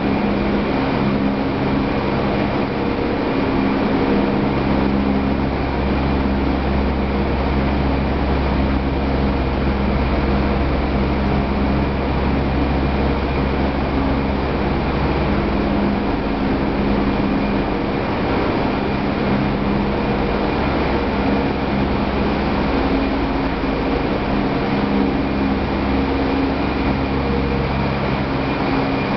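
Corn wet milling plant machinery running steadily: a constant low hum with a few held tones over an even hiss, without letup.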